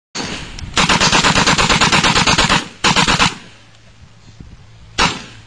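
A mounted machine gun firing on full automatic: a long burst of about two seconds of rapid, evenly spaced shots, then a short burst, then one single shot near the end.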